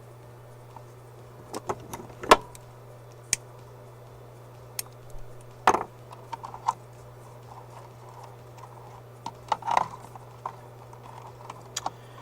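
Scattered light clicks and taps of small hand tools and wires being handled on an electronics workbench during wire splicing, over a steady low hum.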